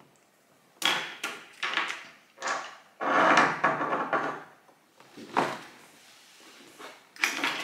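Small items and packaging handled and set down on a hard tabletop: a run of knocks, scrapes and rustles over the first few seconds, a single sharp click midway, and another cluster of knocks near the end.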